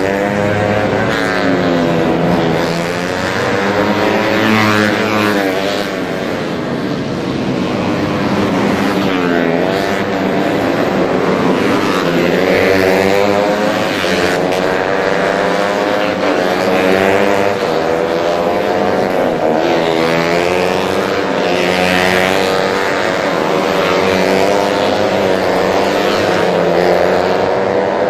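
Several racing motorcycle engines running at high revs. Their pitch rises and falls over and over as the bikes accelerate, shift and pass, with more than one engine heard at once.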